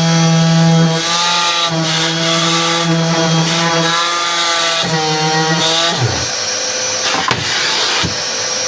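Elitech COS 2012SL woodworking machine running through a board with a Shop-Vac pulling the shavings. The motor's pitch dips several times under load, then the motor winds down about six seconds in while the vacuum's hiss carries on.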